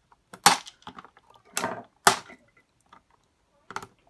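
Sharp clicks and short scrapes of long-nose pliers working a wire spring clip off the plastic control-knob housing of an electric shower. There are three louder clicks in the first two seconds and one more near the end.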